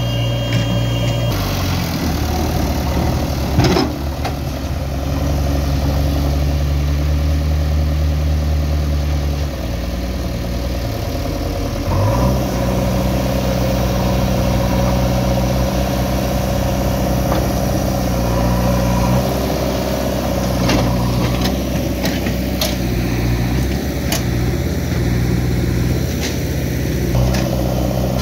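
Diesel engine of a JCB 3DX backhoe loader running steadily, its revs stepping up and down a few times as it works. A few sharp clanks come through, around the fourth second and again about two-thirds of the way in.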